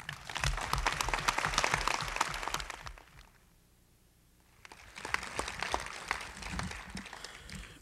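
Audience applauding, dying away after about three seconds; after a short lull a softer patter of sound starts up again.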